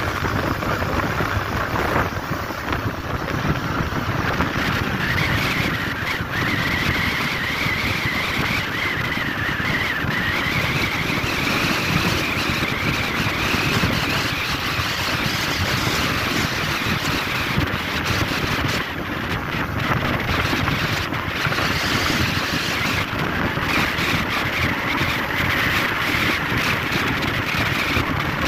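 Steady road and wind noise of a vehicle travelling at speed on a highway, with a faint whine that drifts up and down in pitch.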